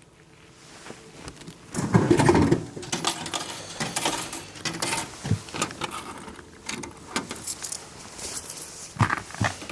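Handling clatter: a quick run of irregular knocks and light metallic clinks that starts about two seconds in, loudest at the start, then carries on more sparsely.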